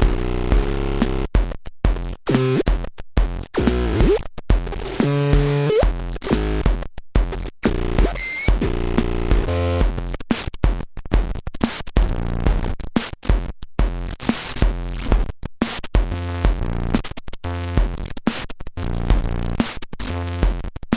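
Korg Monotribe analog synthesizer and its drum section playing a live electronic groove through a Korg Kaoss Pad: a pulsing kick drum under a synth bass line, chopped by frequent abrupt cut-outs, with rising pitch sweeps about four and six seconds in.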